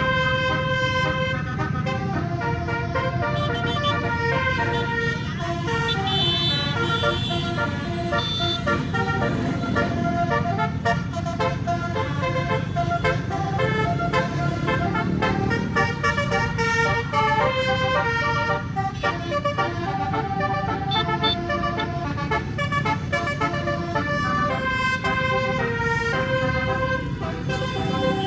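Tour bus's 18-note Basuri musical air horn playing a 'telolet' melody: a continuous run of horn notes stepping up and down in pitch, over the low rumble of engine and traffic.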